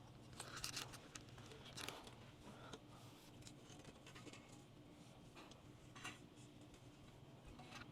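Near silence: room tone with a low steady hum and a few faint clicks and rustles, spread through the stretch.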